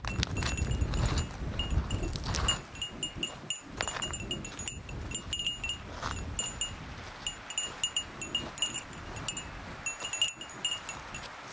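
A small metal bell jingling over and over in the rhythm of walking, mixed with crunching footsteps on loose stones. For the first couple of seconds wind rumbles on the microphone.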